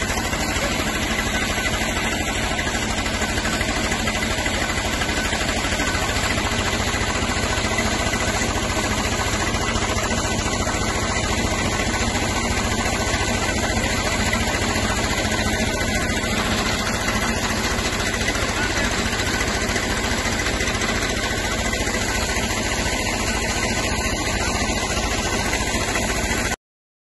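Tractor engine running steadily under load, driving a 4×3 PTO centrifugal water pump, with the steady rush of a full-bore water jet from the discharge hose. The sound cuts off suddenly near the end.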